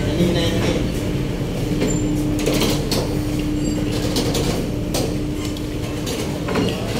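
Ferry engine running with a steady low rumble and a constant hum. A few footsteps and knocks on the steel gangway plates come over it.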